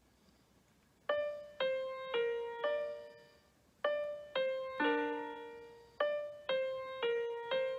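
Piano tones from a tablet piano app, played one note at a time with the toes: a slow, halting simple melody of about eleven notes that starts about a second in, with a short pause midway.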